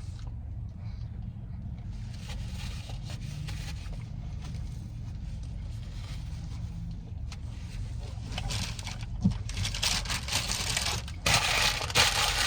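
Rustling and scraping while a chicken wrap is handled and eaten, over a steady low hum. The rustling grows louder in the last few seconds.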